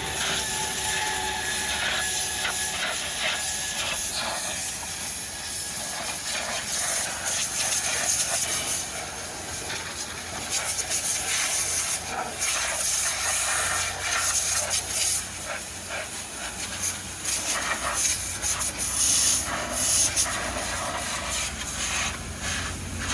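Water jet spraying onto a JCB 3DX backhoe loader during washing: a steady hiss that swells and dips as the spray moves, over a low hum.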